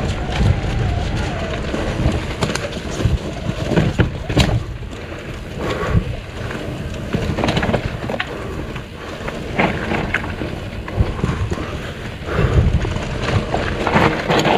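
Wind buffeting the microphone as a mountain bike descends a dirt trail, with tyre noise and irregular knocks and rattles as the bike goes over bumps.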